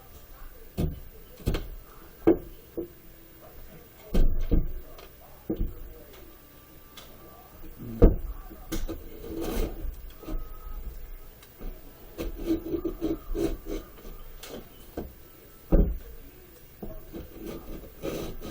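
Sheetrock being cut and broken out by hand: irregular scraping strokes mixed with sharp knocks.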